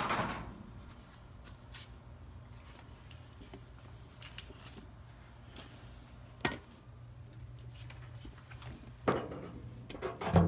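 A few isolated light knocks and clicks, three of them stronger than the rest, over a faint low steady hum.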